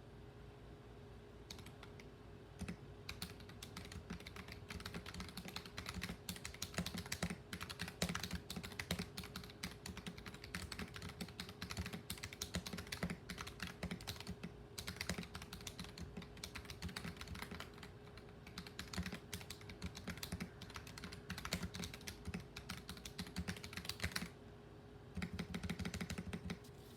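Mechanical keyboard with lubed Akko CS Lavender Purple tactile switches being typed on in a steady run of keystrokes. Near the end there is a short pause, then a fast flurry of presses. A faint steady hum lies underneath.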